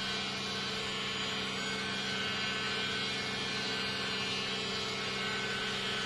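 Hot air gun blowing steadily: a constant rush of air with a steady hum under it.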